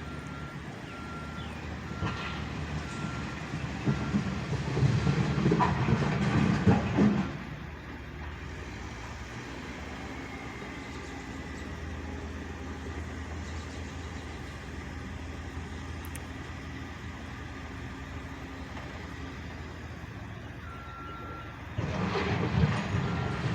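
Backhoe working gravel: its diesel engine is loud under load for several seconds, then runs steadily at lower revs before loading up again near the end. Its reversing alarm beeps at the start and again near the end.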